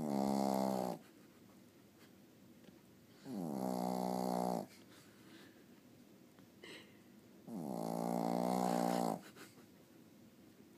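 A sleeping pet snoring: three long snores about four seconds apart, each a second or more in length.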